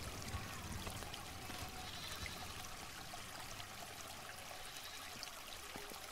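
Faint steady rushing noise, with a few soft ticks scattered through it.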